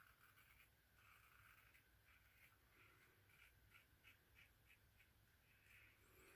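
Faint scraping of a Star safety razor cutting lathered stubble on the upper lip in short strokes, quickening to about three a second in the middle.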